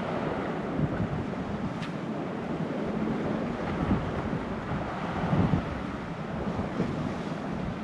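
Wind buffeting the microphone over surf washing on a rocky shore, the rumble rising and falling in uneven gusts.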